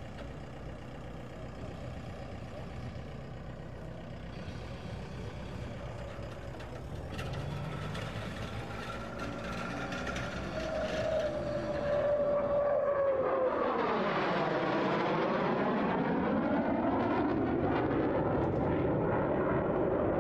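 A CF-18 Hornet twin-engine fighter jet flying overhead, its engine noise growing louder over the second half and staying loud to the end, with a sweeping whoosh that dips and rises in pitch as it passes. Before that, only a faint steady background rumble.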